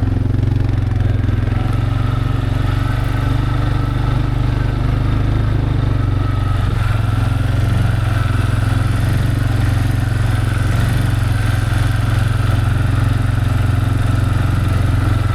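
An engine running steadily at a constant speed, a loud, even low hum that does not change.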